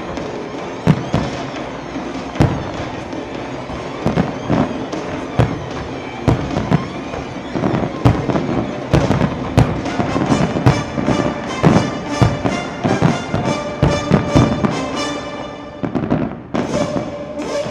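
Aerial fireworks shells bursting over music. At first there is a sharp bang every second or so, then from about halfway a rapid string of cracks comes in, with the music more prominent. Both drop away briefly near the end.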